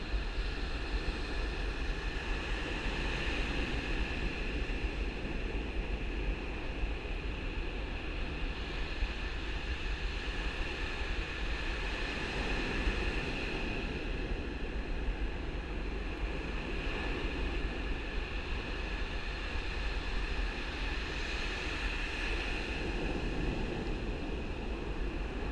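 Ocean surf and wind rushing over an action camera's microphone: a steady, muffled rumble that swells every few seconds.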